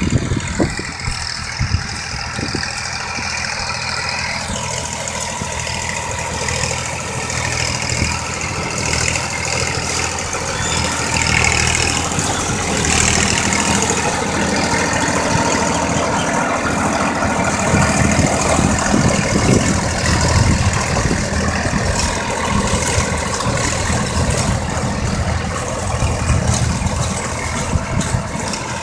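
Tractor engine running steadily while ploughing a field, a continuous low drone.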